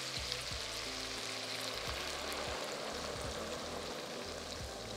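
Dry cider sizzling steadily as it is poured into a hot casserole dish of browned pork and vegetables, deglazing the pan.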